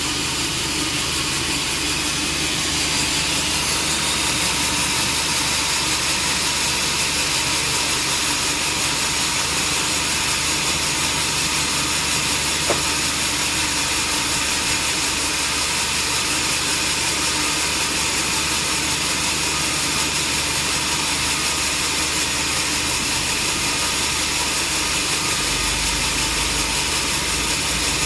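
Sawmill machinery running steadily with an even engine-like drone and hiss, and one brief tick about halfway through.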